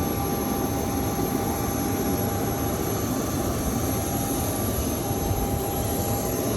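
Steady rushing noise of a jet aircraft, engines and airflow, with a faint steady whine.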